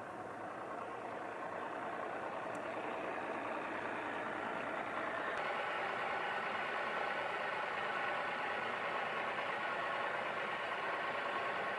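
A boat motor running steadily, slowly growing louder, with a step up about five seconds in.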